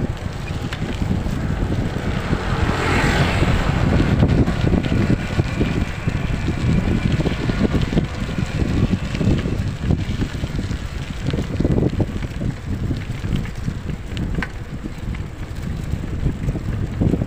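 Wind buffeting the microphone of a phone carried on a moving bike, a steady gusty rush with the ride's road and vehicle noise underneath, swelling briefly about three seconds in.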